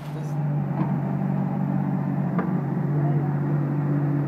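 Mini excavator's engine running steadily at one low pitch, with a couple of faint clicks.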